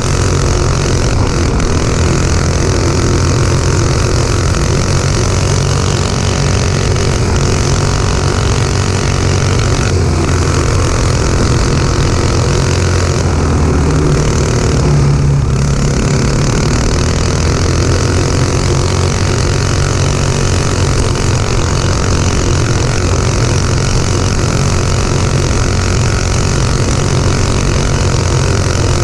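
Go-kart's Honda 5.5 hp single-cylinder four-stroke engine running steadily at speed, heard from on board the moving kart.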